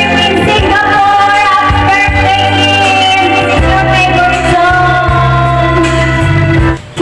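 A woman singing a song through a handheld microphone over backing music, with long held notes. The sound dips briefly near the end.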